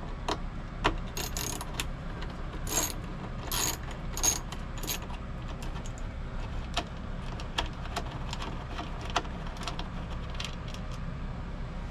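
Screwdriver at work on the screws holding a car's factory head unit in the dash: small metallic clicks, scrapes and clinks, busiest in the first few seconds and sparser after.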